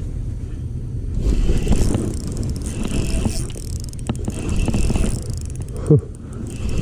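Fishing reel being cranked to retrieve a cast lure, in turns of about a second, over a low rumble of wind on the microphone.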